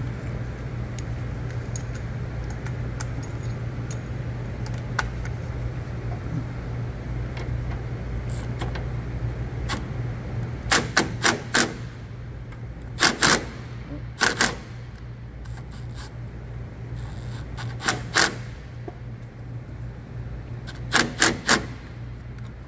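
Compact cordless impact wrench driving bolts in short rattling bursts: a quick run of hits about eleven seconds in, two more bursts soon after, one near eighteen seconds and a last cluster near the end. A steady low hum sits underneath.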